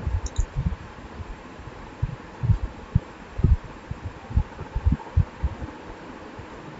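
Irregular low, muffled thumps on the microphone, one or two a second, over a steady hiss, with a small mouse click about a third of a second in.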